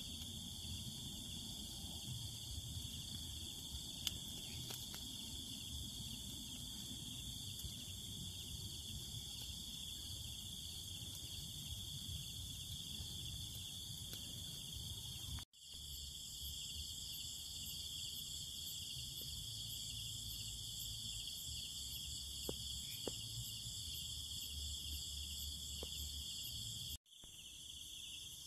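Night insect chorus of crickets chirring steadily in a high, even band, with a low rumble underneath. The sound drops out abruptly twice, about halfway through and near the end.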